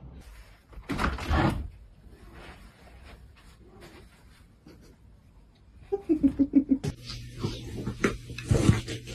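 A pet animal vocalising: a quick run of short pulsed calls, falling slightly in pitch, about six seconds in, preceded by a short loud noise about a second in and followed by scattered knocks over a steady low hum.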